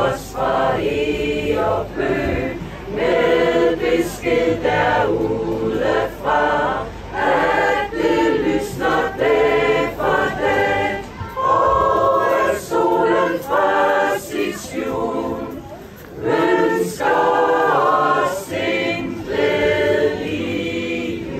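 Mixed choir of men and women singing unaccompanied, in phrases with short breaks between them.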